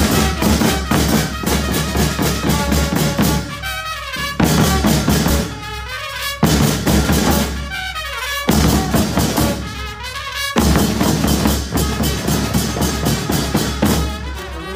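A village band playing loud, lively music: rapid drumming led by a bass drum, with brass. The music moves in short phrases, the low drums dropping out briefly about every two seconds.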